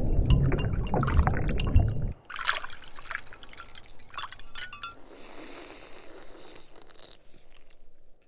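A crushed-ice lolly is plunged into a glass of juice. Loud splashing and gurgling for about two seconds, then scattered clinks of ice against the glass, then a soft hiss that fades near the end.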